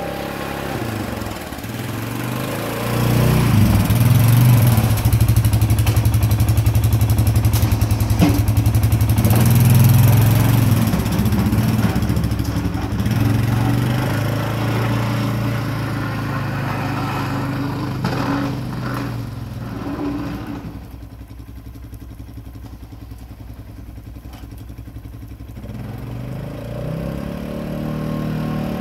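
ATV engine running as it plows snow, revving and growing louder a few seconds in, then dropping quieter past the middle and picking up again near the end.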